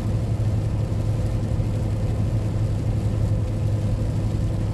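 Semi-truck driving at highway speed in the rain, heard inside the cab: a steady drone of engine and road noise with a constant low hum.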